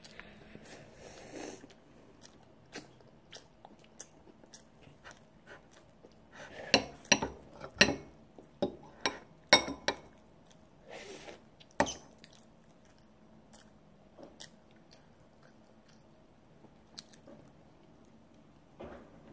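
A child chewing soft roll cake with quiet mouth sounds. A metal fork clinks sharply against a ceramic plate several times as it cuts into the cake, in a run of clicks between about 7 and 10 seconds in and once more near 12 seconds.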